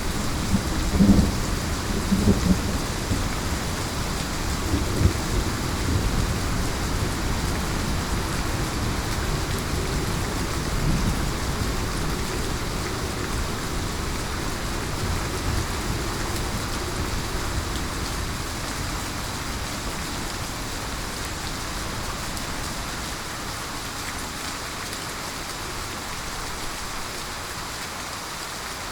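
Heavy rain pouring steadily, with low rolling thunder rumbling in the first few seconds and fading away; the storm grows slowly quieter.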